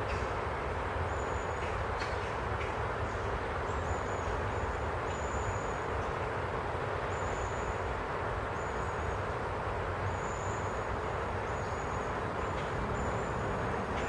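Steady wind rushing through forest trees, with short, high, thin bird call notes repeating about once a second over it.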